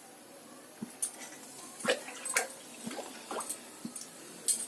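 Oil heating in a kadai on a gas stove, giving irregular small pops and clicks, about a dozen, the sharpest near the end.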